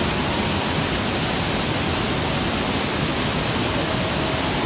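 Waterfall and rushing river white water: a loud, steady, even rush of falling and churning water.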